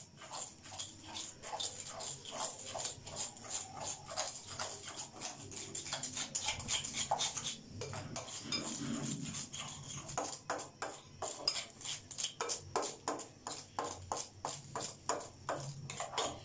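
Metal fork mashing boiled sweet potato softened with a little milk in a glass bowl: quick, repeated clicks and scrapes of the fork against the glass, several a second.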